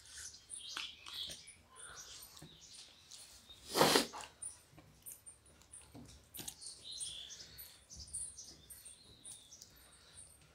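Hand-eating of rice and curry from steel plates: soft chewing and mouth smacks, with fingers squishing and clicking the food against the plates. One short, loud breathy noise comes about four seconds in, and faint high chirps sound in the background.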